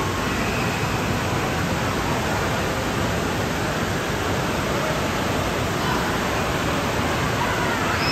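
Steady rushing din of an indoor water park pool hall: running water and echoing room noise in an even, unchanging wash.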